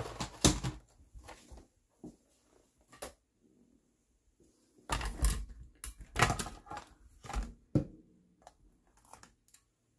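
A stamping platform with a clear acrylic lid being brought in and set down on a craft mat: a couple of knocks at the start, then a cluster of clunks and handling knocks about five to eight seconds in as it is put in place.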